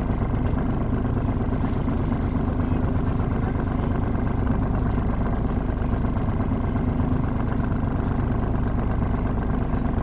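A Catalina 30 sailboat's inboard engine idling steadily in neutral at the dock before casting off, a low, even hum.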